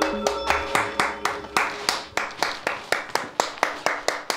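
Hands clapping in a steady rhythm, about four claps a second, in welcome. A few held tones fade out during the first second and a half.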